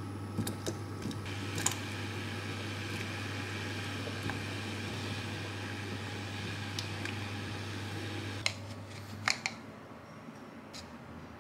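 Saucepan of water heating on an electric glass-top hob: a steady low hum with a faint hiss, and a few light knocks and splashes as sweet potato pieces go into the water and a wooden spoon stirs them. The hum stops suddenly about nine seconds in.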